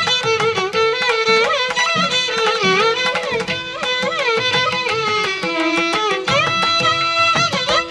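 Instrumental music: a violin plays a sliding, ornamented melody over a steady held lower note, with hand-drum strokes keeping time.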